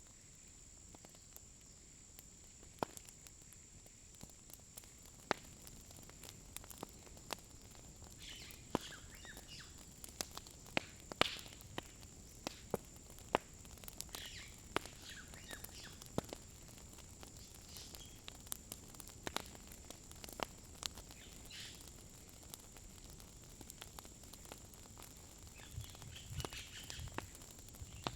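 Faint crackling of a wood fire, with scattered sharp pops at irregular intervals, over a steady high-pitched insect drone.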